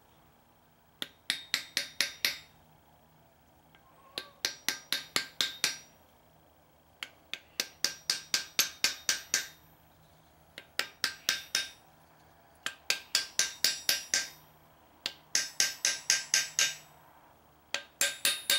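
A hammer driving a steel nail into the end grain of a wooden dowel. The blows come in seven quick runs of about five to eight ringing metal-on-metal taps each, at roughly four or five a second, with a pause of about a second between runs.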